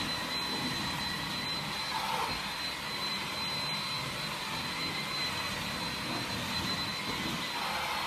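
Hoover ONEPWR Blade+ cordless stick vacuum running steadily while being pushed over a rug: a rush of air with a thin high-pitched motor whine over it.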